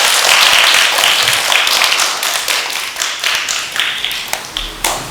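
Audience applauding, a dense round of clapping that thins out to a few scattered claps and dies away near the end.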